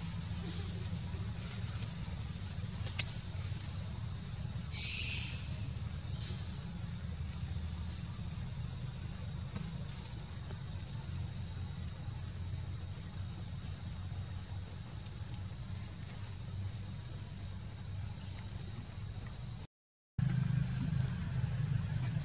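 Insects droning steadily at a high pitch over a low rumble, with a brief higher chirp about five seconds in. The sound cuts out for a moment near the end.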